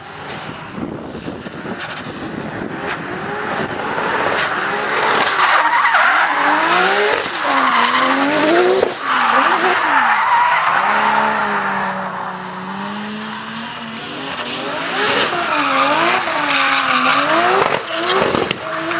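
Nissan Silvia S15 drift car sliding with its tyres squealing. Its engine revs climb and fall over and over, with a brief sharp cut in the noise about nine seconds in.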